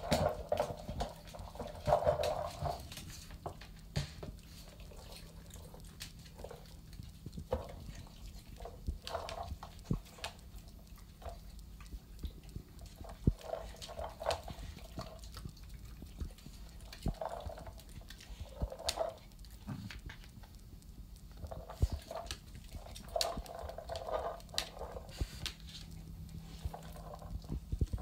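A hard pink dog toy being nosed and pushed around on a tile floor, giving irregular clacks and knocks, with dogs' paws tapping on the tiles.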